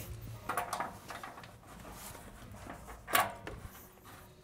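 A few scattered clicks and clanks of a wrench and gloved hands working on a water heater's flex water-line fitting, with the sharpest clack about three seconds in.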